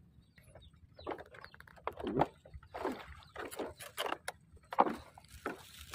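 Bamboo footbridge poles creaking and knocking under someone walking on them, one short creak or knock with each step, about every two-thirds of a second, starting about a second in.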